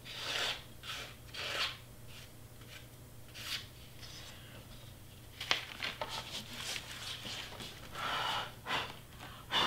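A person blowing a series of short puffs of breath to clear loose scraps of cut cardstock off a paper piece, with one sharp click about halfway through.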